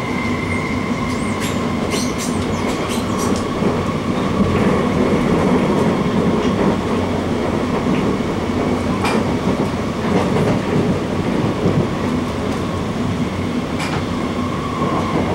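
Cabin noise inside a Changchun Alstom Movia R151 metro train running between stations: a steady rumble of wheels on rail with a faint steady whine and occasional clicks.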